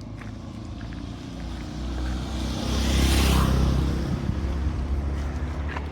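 JCB 3DX backhoe loader's diesel engine running, swelling louder for a couple of seconds in the middle as it works harder, with a rushing hiss at its peak, then easing back.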